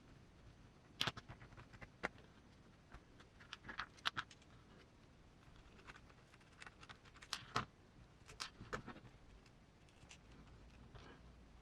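Scattered light clicks and taps of small metal parts and a hand tool being handled on a small RC crawler's wheel hub. A few sharper knocks come about a second in, around four seconds in, and twice in the second half.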